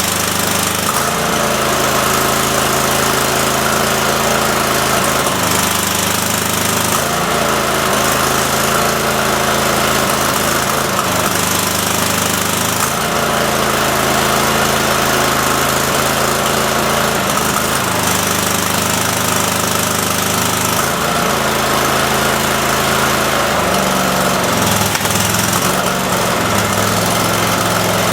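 22 hp Kohler engine of a Cub Cadet 3225 riding mower running, its note changing every few seconds. The engine is still not running right after a carburettor rebuild; the owner suspects a leaking fuel solenoid letting air in.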